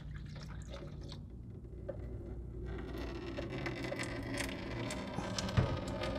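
Old engine coolant poured from a plastic bucket into a funnel lined with a coffee filter, then trickling and pattering through the filter into a plastic jug. A single knock comes near the end.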